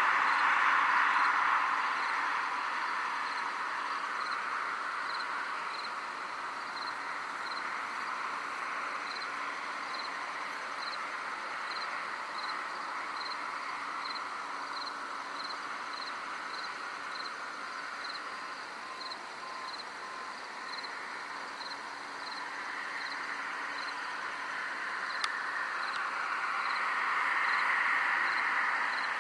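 Crickets chirping in a steady, even rhythm of about two chirps a second over a denser chorus of night insects. The chorus is louder at the start, falls back in the middle and swells again near the end. One brief click about 25 seconds in.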